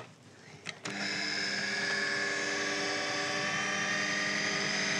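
KitchenAid food processor motor starting about a second in and then running at a steady, even pitch, mixing almond meal into a wet orange cake batter.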